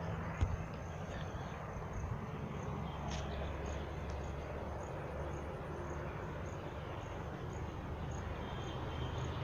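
Outdoor ambience: a steady low rumble, with a faint high chirp repeating about twice a second.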